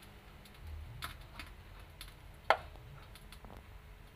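Scattered small clicks and taps over a low background rumble, with one sharp, louder click about two and a half seconds in.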